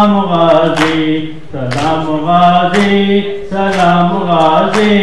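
A male voice chanting a Muharram lament in long, held, wavering notes, with a sharp beat about once a second.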